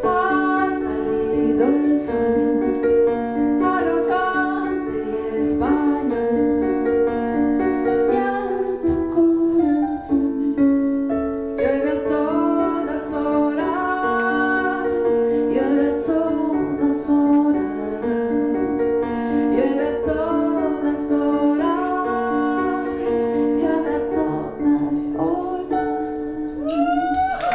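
A woman singing a slow song live while playing chords on an electronic keyboard with a piano-like sound; the held keyboard notes sit under her voice throughout.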